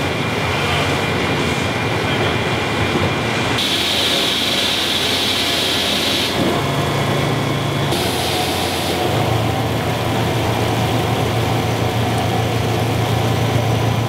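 Winery grape-processing machinery running steadily: a low machine hum under a broad hiss of flowing juice and must. The sound changes abruptly every few seconds.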